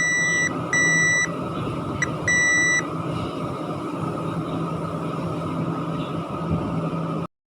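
Multimeter continuity beeper sounding a high-pitched beep: one beep ending about half a second in, two more short beeps and a brief blip over the next two and a half seconds, then silence from the beeper over a steady hiss and low hum.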